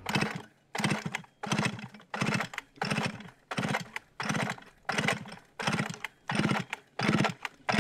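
Starter cord of a 1950s Swedish chainsaw pulled over and over, about one pull every 0.7 s. Each pull spins the two-stroke engine with a short rasping buzz, but it does not catch: the saw has trouble starting, put down to something clogged that is stopping the fuel.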